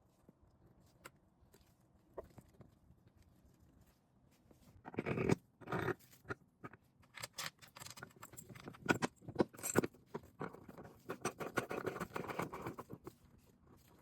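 Irregular knocks, clicks and scraping from hands working with tools and parts during a washing machine bearing repair. There are a few sparse clicks at first, a loud rough scrape about five seconds in, then dense clattering for several seconds.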